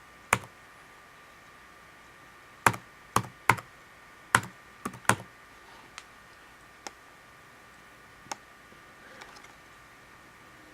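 Keys on an Acer netbook's keyboard pressed one at a time, about ten separate keystrokes at uneven intervals, as a Wi-Fi password is typed in.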